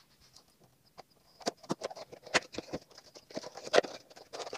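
Small cardboard toy box being handled and opened by hand: a scatter of light taps and rustles, starting after about a second.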